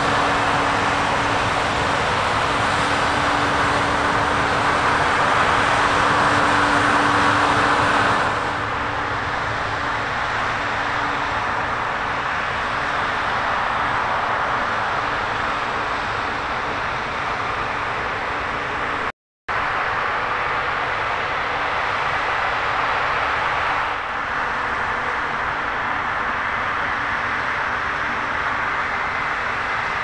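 New Holland CR10.90 combine harvesters running steadily under load while cutting and threshing grain: a continuous machine noise with a steady hum in the first part. The sound shifts abruptly about eight seconds in and cuts out for an instant about two-thirds through.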